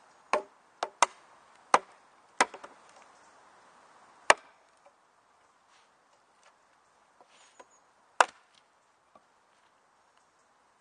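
A wooden baton striking the spine of a full-tang Täräva Jääkäripuukko knife, driving the blade into a log to split it. Five sharp knocks come in quick succession in the first two and a half seconds, then single strikes about four and about eight seconds in.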